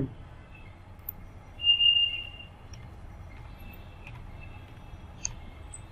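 Faint computer-keyboard typing, a few light ticks over a low, steady hum. About a second and a half in comes a short, high-pitched steady tone lasting nearly a second, the loudest sound here.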